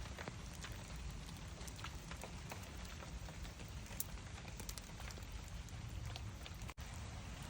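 Light rain falling: a steady soft hiss with scattered individual drops tapping. The sound briefly cuts out near the end.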